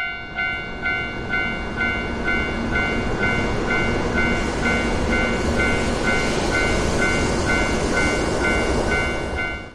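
Japanese level-crossing alarm bell ringing steadily a little over twice a second, over the loud rushing rumble of a train running past.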